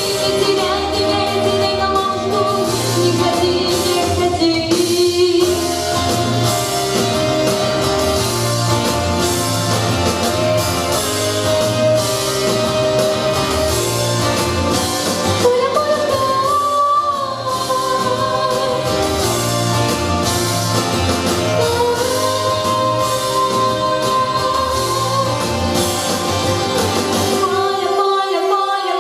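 A song with a singing voice over instrumental accompaniment and a steady bass beat.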